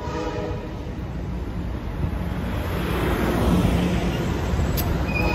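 Amtrak bilevel passenger cars rolling slowly past, steel wheels rumbling on the rails with a faint wheel squeal at first. The sound grows louder toward the end, with one sharp click shortly before it ends.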